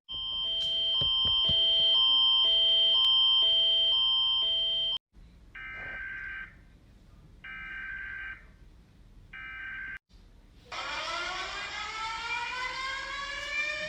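Emergency alert system style alarm tones: a steady high tone over a pattern that alternates between two lower notes for about five seconds, then three long beeps, then a rising siren-like tone from about eleven seconds in.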